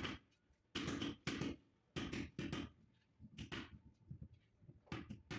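Rubber mallet tapping a white marble stair tread to bed it into fresh mortar: about ten dull blows at an irregular pace, some in quick pairs.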